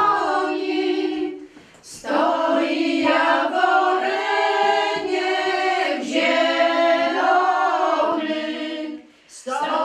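A group of women singing together unaccompanied, holding long notes in drawn-out phrases, with a short break for breath about a second and a half in and another near the end.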